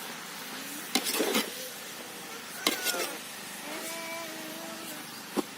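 A ladle knocking and scraping against a cooking pan as pumpkin halwa is stirred over the heat, with a steady sizzling hiss underneath. The sharp knocks come about a second in, a little before 3 s, and near the end.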